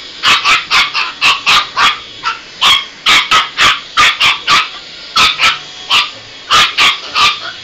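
Chihuahua puppy barking rapidly in short, high-pitched yips, about three a second with two brief pauses. It is worked up over a handheld vacuum being pushed across the carpet.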